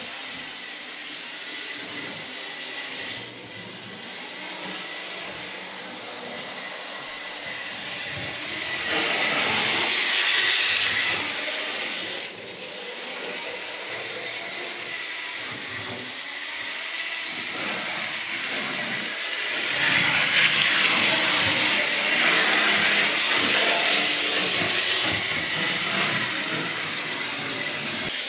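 Model Cardiff Corporation Transport tram running on the layout's track: a whirring hiss from its small electric motor and wheels, with a faint steady high whine. It swells louder twice, about nine seconds in and again about twenty seconds in.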